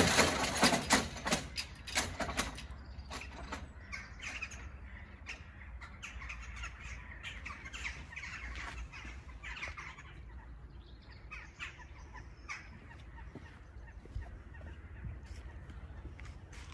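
A quick run of loud clicks and knocks in the first couple of seconds, then birds calling outdoors, with short, scattered crow-like caws.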